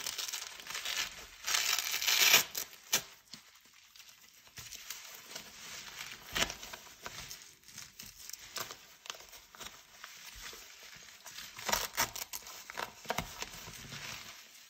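Handling noise from a helmet cover's Velcro strips being pressed and pulled under the helmet pads, with crinkling rustle from the helmet shifting on bubble wrap. There is a longer tearing rasp about two seconds in and a few sharp light knocks scattered through.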